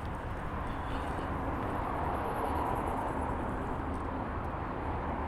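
Steady road traffic noise: cars driving past, with a low rumble and a swell in the middle.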